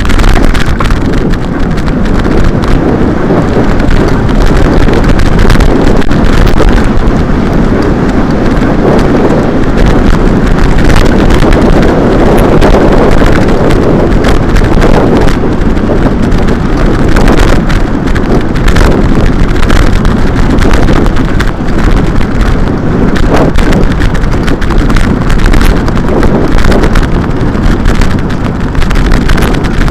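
Loud wind rumble on the microphone with constant rattling and knocking from riding over a rough, bumpy dirt road.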